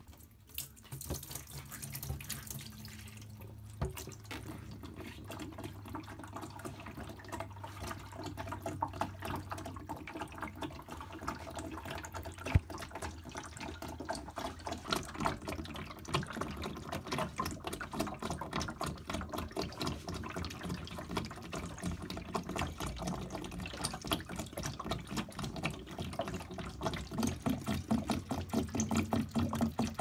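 Water pouring from a condenser tumble dryer's plastic water tank into a stainless steel sink, splashing onto the steel and running toward the drain. It grows louder through the pour and turns to quick, regular pulses near the end.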